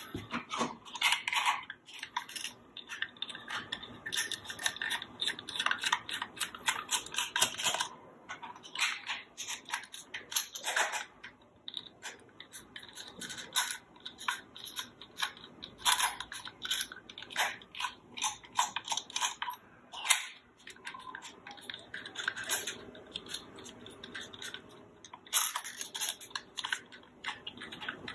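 A small Phillips screwdriver backing tiny screws out of the plastic back of an IKEA VINDRIKTNING air quality sensor: a busy run of small clicks and scrapes of the metal tip on the screw heads and the plastic casing, broken by a few short pauses.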